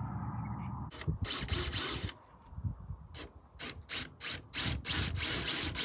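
A hand tool rasping on wood in repeated strokes. The strokes start about a second in, with one longer stroke followed by a run of short strokes that come faster near the end.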